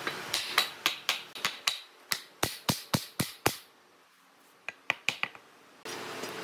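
A quick run of sharp knocks on wood, about four a second, then a short pause and four more. The knocks come as the rails of a bench frame are knocked home into the mortises in its legs.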